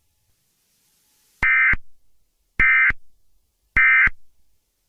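Three short bursts of Emergency Alert System SAME digital data warble, each about a third of a second long and about a second apart: the end-of-message code that closes an EAS alert.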